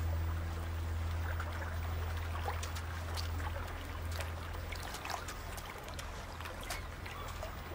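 Shallow water trickling and splashing, with scattered small clicks of wet pebbles, as a raccoon paws through the shallows for food. A low steady hum underlies it and fades about five seconds in.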